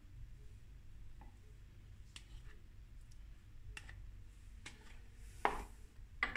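Faint clicks of a metal fork against a plastic container as avocado pieces are scooped out onto a salad, then a louder knock about five and a half seconds in as the plastic container is set down on a wooden board.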